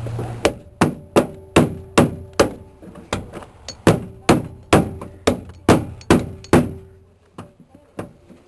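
Steady hammer blows on steel, about two and a half a second, each with a short metallic ring, driving the hinge pin out of a Chevrolet K5 Blazer door hinge. The blows stop about two-thirds of the way in, followed by a few lighter taps near the end.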